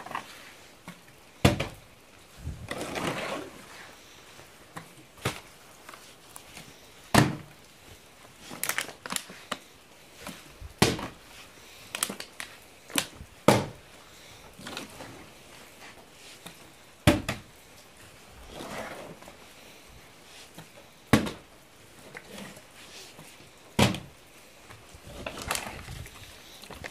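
Plastic water bottle tossed again and again, landing on a wooden tabletop with sharp knocks, about a dozen in all, a second to several seconds apart, with rustling handling between throws.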